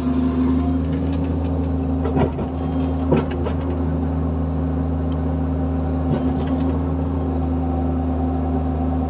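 Diesel engine of a Bobcat E45 mini excavator running steadily, heard from inside the cab, with a couple of brief knocks about two and three seconds in.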